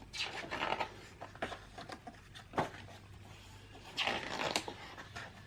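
Glossy photobook pages being handled and turned, with soft paper rustles and one sharp tap about halfway through.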